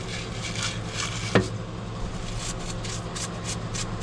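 Brush scrubbing a metal engine part in a kerosene parts washer: repeated short scraping strokes, about three to four a second in the second half, over a steady low hum, with one sharp knock about a second and a half in.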